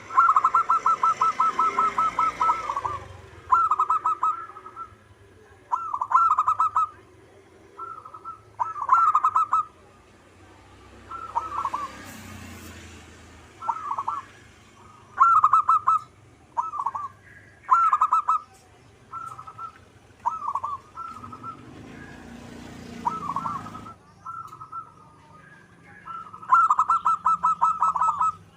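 Zebra doves (perkutut) cooing in repeated short phrases of quick, staccato notes: a fast rolling run of coos at the start and again near the end, with shorter bursts of a few notes every second or two in between.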